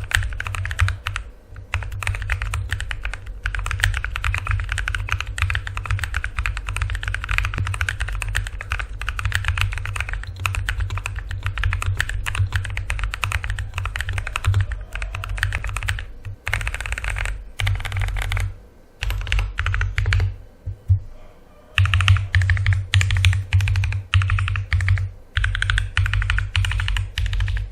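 Typing on a Cooler Master MK870 mechanical keyboard with WS Brown switches: a fast, continuous stream of key clacks for the first half, then shorter bursts of typing with brief pauses between them.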